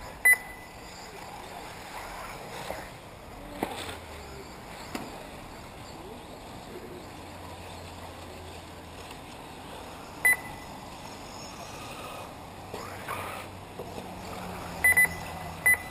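Short high electronic beeps from the race's lap-timing system: once just after the start, once about ten seconds in, and three times near the end. Under them runs a steady outdoor hiss with the faint whine of electric 1/8-scale RC buggies racing on a dirt track.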